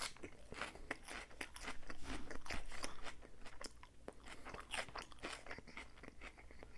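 Close-miked chewing of a forkful of chopped salad with crisp lettuce and shredded carrot: a run of many small wet crunches, loudest about two to three seconds in.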